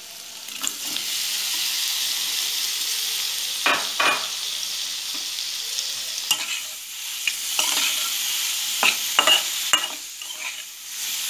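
Diced green capsicum sizzling in hot oil in an aluminium kadai: the hiss jumps up about a second in as the pieces go into the pan. A flat metal spatula knocks and scrapes against the pan several times as it is stirred.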